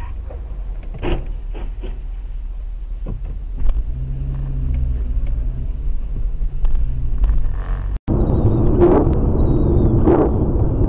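Car engine and road rumble heard from inside the cabin through a dashcam microphone, with a few light clicks. About two-thirds of the way in it cuts briefly to silence, then comes back louder, with several swells.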